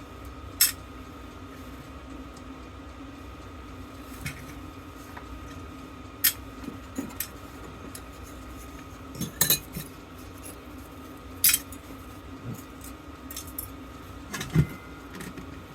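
Small die-cast and steel parts of a dismantled fire bell clinking as they are handled and dropped onto scrap piles: a handful of sharp, separate metallic clinks a second or more apart, two close together about halfway through.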